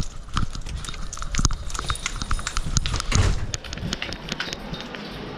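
A dog's paws and claws clattering in quick, irregular clicks and knocks as it bounds up concrete steps and onto a hard floor, with a few heavier thumps at the start and about three seconds in. It is heard from a camera strapped to the dog's back, so the harness jolting adds to the knocks.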